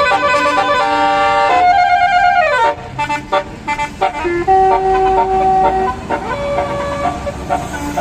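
Bus basuri telolet air horn playing a melody: several tones stepping from note to note, then a held chord that falls in pitch and dies away about two and a half seconds in. After a short lull, a few more single held notes sound.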